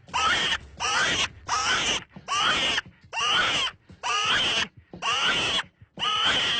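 An animal squealing: about eight harsh cries in a row, each about half a second long, coming a little under one a second.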